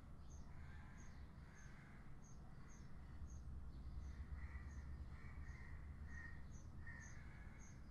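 Unedited background noise picked up by a Blue Snowball iCE USB condenser microphone with no one speaking: a faint low hum and hiss. Faint short high chirps repeat about twice a second over it.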